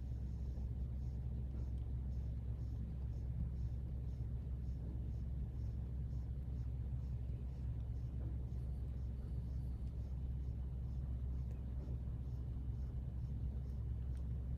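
A steady low hum, with faint, evenly spaced high ticks about one and a half times a second.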